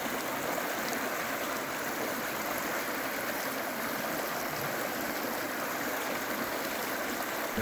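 A shallow river running over rocks: a steady rush and gurgle of flowing water.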